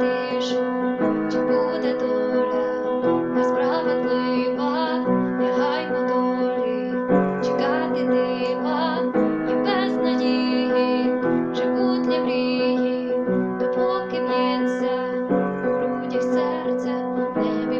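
Music: sustained keyboard chords changing about every two seconds, with a wavering higher melody line over them.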